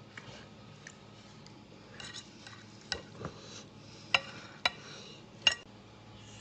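A knife cutting through a roast leg of lamb on a plate. The blade scrapes and clicks sharply against the plate several times in the second half, loudest about four seconds in.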